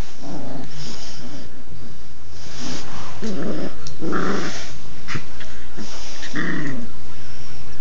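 Two standard poodle puppies play-wrestling, growling in several short bursts.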